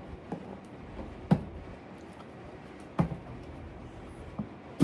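Stanley 19-inch plastic toolbox being handled and opened: a few sharp plastic clicks and knocks, three louder ones spaced about a second and a half apart, with smaller ticks between.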